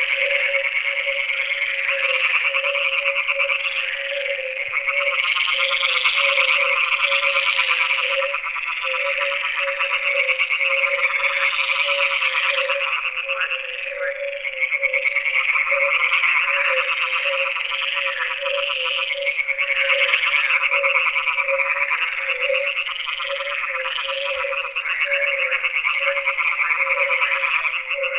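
A dense chorus of many frogs croaking, their finely pulsed calls overlapping without a break.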